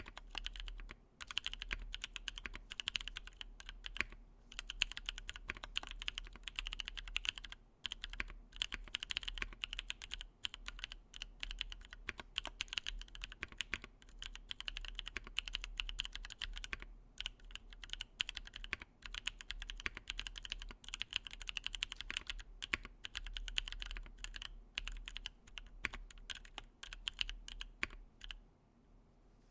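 Typing on a Matrix 8X V2.2 mechanical keyboard with an aluminium plate, lubed Paco switches (Halo Clear stems in NovelKeys Cream housings), GMK keycaps and dampening foam inside: a fast, irregular run of keystrokes. The typing stops shortly before the end.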